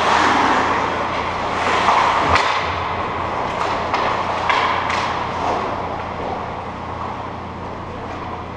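Ice hockey game sounds in a large indoor rink: skate blades scraping across the ice with several sharp knocks of sticks and puck, over a steady low hum.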